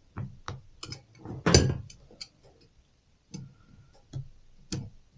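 Irregular metal clicks and clacks of blue-handled tongue-and-groove pliers working the twisted ends of a homemade wire hose clamp down tight on a hose, with a louder clatter about a second and a half in.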